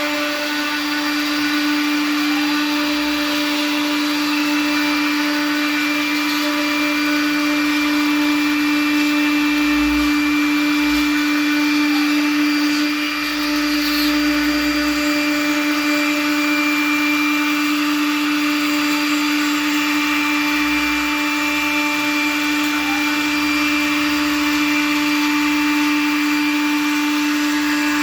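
CNC router spindle running at 18,000 rpm while cutting 15 mm MDF: a steady high whine with the noise of the cutter through the board.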